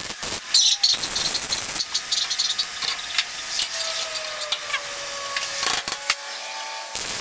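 Electric arc welding on steel plate: the arc crackles and sputters in a few runs, pausing briefly about six seconds in before starting again. The welder was still turned down from welding thinner metal, which the welder blames for rough-looking welds.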